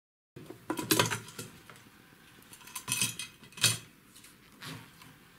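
Metal clinks, knocks and scrapes from the sheet-metal case of an avionics display unit being slid off its chassis and handled. There are about five sharp knocks, the loudest about a second in and just before the middle.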